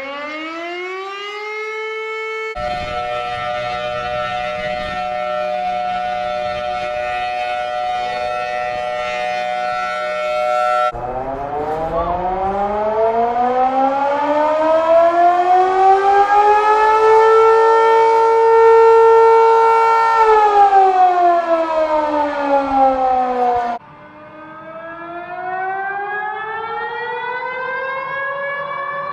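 A string of civil defense siren sounds with abrupt cuts between them. A siren wails upward, then switches to a steady multi-tone siren chord. About eleven seconds in comes a long wail that rises, holds and falls, and near the end another wail starts rising.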